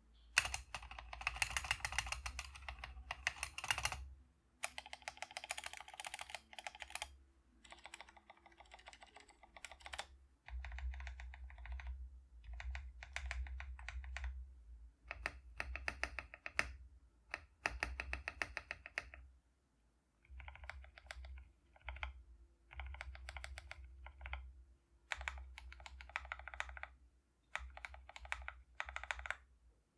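Typing on an Epomaker Mini Panda 64 mechanical keyboard with lubed KTT Mint switches: quick runs of keystrokes, each a second or three long, with short pauses between them.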